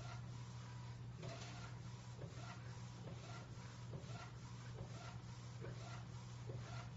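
Dreamjet ARTIST phone-case vending machine's built-in flatbed inkjet printer running mid-print: a steady low hum with a short rising whir about twice a second, in a regular rhythm.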